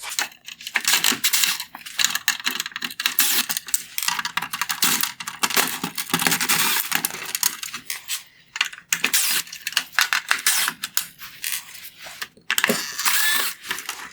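Rapid clicking and rattling of a screwdriver backing T15 Torx screws out of a plastic headlight housing, with short pauses between screws.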